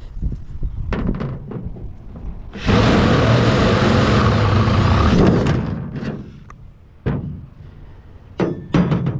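A power drill with a 7/16 bit runs for about three seconds, loud and steady, then winds down. Clunks and clinks of metal parts being handled come before and after it.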